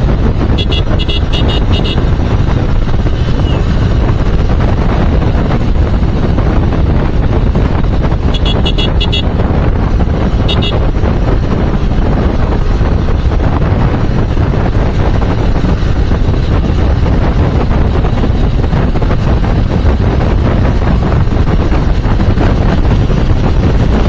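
Wind buffeting the microphone of a motorcycle on the move, over a low engine and road rumble. A vehicle horn beeps in a quick run of short taps near the start, another run a third of the way through, and once more shortly after.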